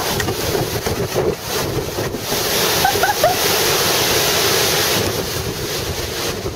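Severe storm wind gusting hard and buffeting the microphone, with wind-driven rain rushing; a stronger gust swells from about two seconds in and eases near five seconds.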